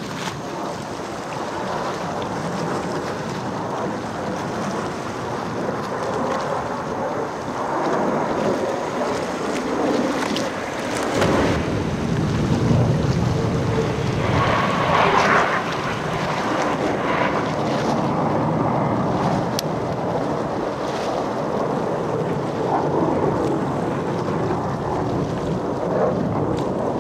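Jet engine roar from Blue Angels F/A-18 Hornets flying overhead, loudest in the middle as two jets pass, with wind buffeting the microphone.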